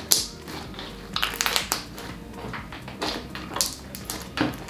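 Thick, gummy fluffy slime being kneaded and stretched by hand, giving irregular sticky clicks and squelches.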